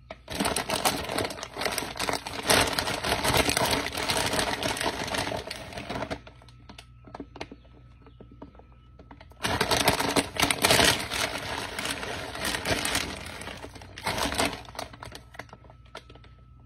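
Plastic bag of shredded cheese crinkling as it is handled and the cheese is shaken out over a casserole, in two spells of dense crackling: one from the start for about six seconds, the other starting about halfway through.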